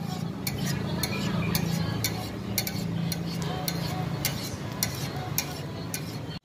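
Metal spatula scraping and tapping on a steel flat-top griddle, with many short irregular clicks, while a burger patty fries in oil, over a low steady hum.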